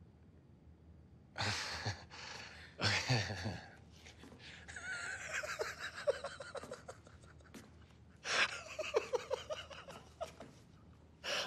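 A person's breathy gasps and exhalations, in short bursts about a second in, about three seconds in and again about eight seconds in.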